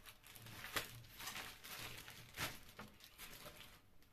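Plastic wrapping rustling and crinkling in short, faint strokes as a small bench lathe is pulled out of its bag and handled, the loudest rustle about two and a half seconds in.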